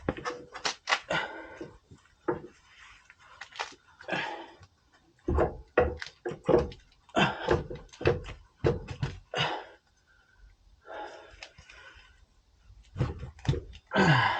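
Irregular knocks and thunks as a replacement CV axle for a Range Rover L322 is worked and pushed into place, several strikes in quick runs with a short pause partway through.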